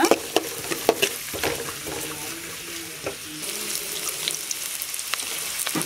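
Chopped onions sizzling in hot oil in a metal kadai, with a steady hiss. A spatula scrapes and taps against the pan in the first second or so.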